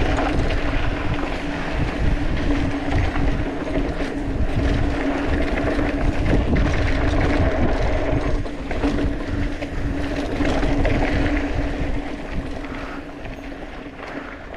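Mountain bike ridden fast down a dirt trail: knobby tyres rumbling over dirt and loose stones, wind buffeting the camera microphone, and a steady buzzing hum underneath. It gets quieter over the last couple of seconds.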